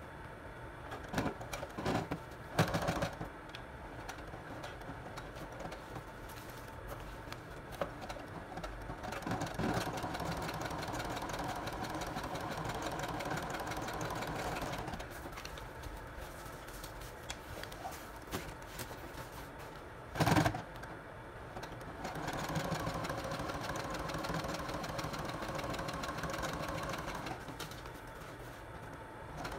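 Brother Project Runway sewing machine stitching through a leather vest and its embroidered patches, running in two steady spells of several seconds each. Short clicks and one brief knock come between the spells as the work is shifted under the needle.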